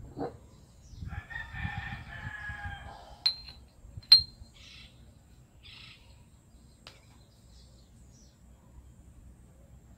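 A rooster crows once in the background, a call of about two seconds. Just after it come two sharp, ringing metallic clinks about a second apart, the second the loudest, as a steel pin is set against a steel plate.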